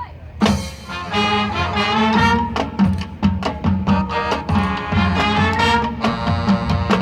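High school marching band playing, with brass and drums coming in together loudly about half a second in and carrying on over a steady beat.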